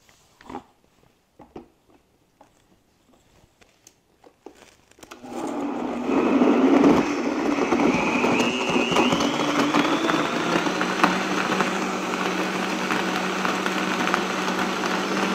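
A few light clicks and knocks, then about five seconds in a countertop blender starts and runs steadily with a whining motor. It is puréeing a jug of fruit, kale, ginger, rice milk and water into a smoothie.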